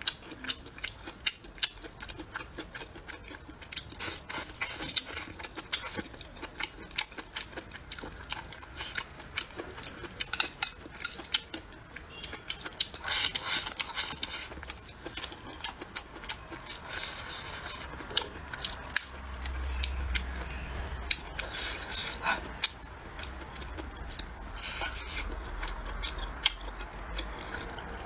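Close-miked eating of braised pork trotter: chewing, sucking and wet mouth smacks, made of many short sharp clicks, with chopsticks clicking against the bowl. A low rumble joins about two-thirds of the way through.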